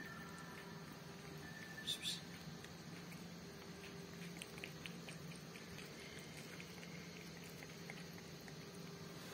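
Cat lapping liquid from a plastic cup: faint, quick little tongue clicks. A brief high-pitched sound about two seconds in.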